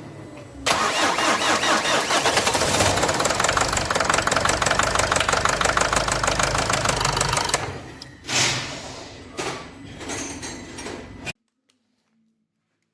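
Nissan Qashqai 2.0 dCi diesel engine running with a loud, rapid, even knocking from damaged connecting rod bearings. It starts suddenly about a second in, stays loud for about seven seconds, then drops with a few brief surges and cuts off abruptly near the end.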